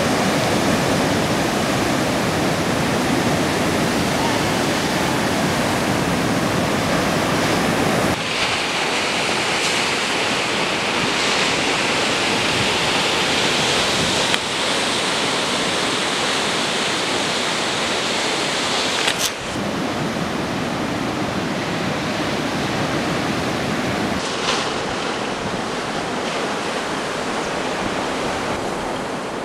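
Ocean surf: waves breaking and washing in a steady rushing noise, which shifts abruptly in tone and loudness three times as the footage changes.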